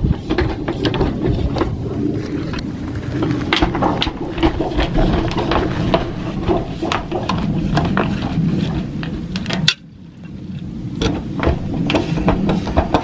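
Biegetec Finish hand seamer rolled along the standing seam of a 26-gauge Galvalume roof panel, folding the double-lock seam: a steady rolling noise full of sharp clicks, with a short break about ten seconds in.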